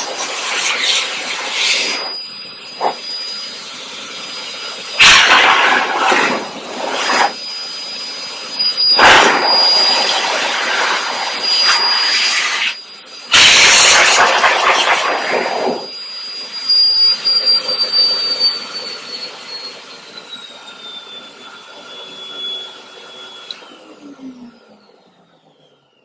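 PetNF force dryer (dog grooming blower) running at high speed: a steady high motor whine under a loud rush of air, with several very loud gusts. About two-thirds of the way in it is switched off and winds down, its whine falling in pitch until it stops near the end.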